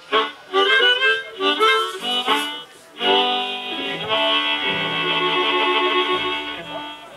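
Live blues band with harmonica: short harmonica phrases, then a long held harmonica chord lasting about four seconds over a stepping bass line.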